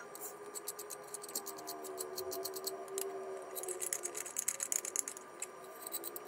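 Rapid light metallic clicking and ticking from a nut being turned by hand on a threaded rod fixed to a small electric motor's shaft. The clicks come in dense runs, one for the first couple of seconds and another past the middle, with a short pause between.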